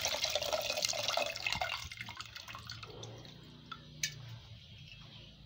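Tamarind water poured into a clay pot of tempered spices and tomato, splashing and dying away over about two seconds. A single light click follows about four seconds in.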